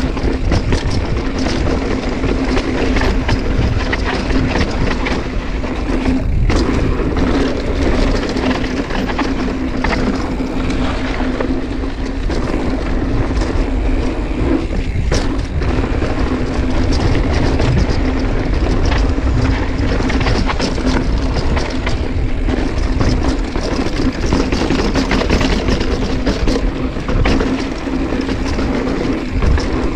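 Mountain bike descending a dirt trail: wind rushing over the bike-mounted camera's microphone, with tyre and frame rattle and a steady buzz from the rear freehub coasting. The buzz breaks off briefly about 6 and 15 seconds in.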